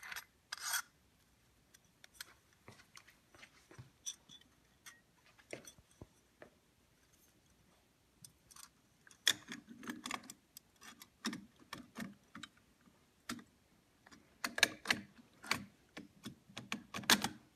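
Light metal clicks and clinks of an Indian motorcycle clutch pressure plate assembly, with a compression tool screwed onto it, being handled and fitted onto the clutch. They are scattered at first, then come thicker about nine seconds in and again near the end.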